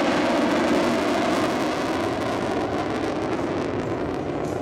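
B-1B Lancer bomber's four turbofan engines as it flies past and away: a steady rush of jet noise that slowly fades.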